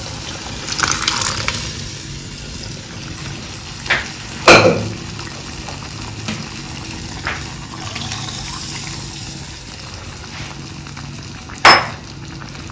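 Cooked toor dal being poured into a pan of simmering tamarind and masala water, with a steady liquid sound and a few sharp metal knocks against the pan. The loudest knocks come about four and a half seconds in and again near the end.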